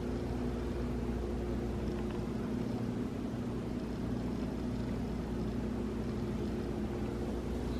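Refrigerator running with a steady low hum of several constant tones.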